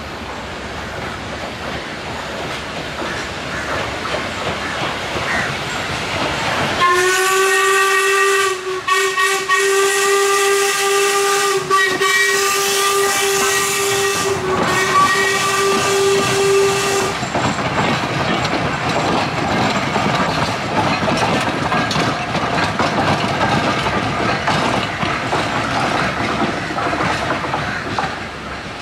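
Sri Lanka Railways Class B2b steam locomotive 213: steady steam hiss, then its steam whistle sounds about seven seconds in, one long single-pitched blast of about ten seconds with a few brief dips. After the whistle, steady hissing and rolling train noise as the train pulls away.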